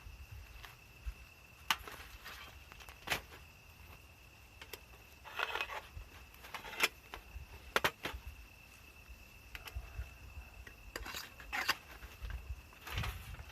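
Scattered light metallic clinks and knocks, with a few short rustles, as small metal pieces are handled. Under them runs a steady high insect trill.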